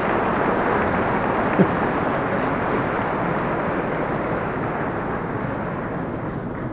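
Large audience applauding, a dense steady clapping that slowly dies down, with one short sharp sound about a second and a half in.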